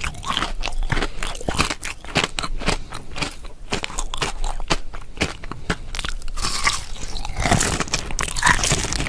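Close-miked biting and chewing of a rock-shaped crystal candy: dozens of sharp, crisp cracks in quick succession, turning into denser, softer chewing near the end.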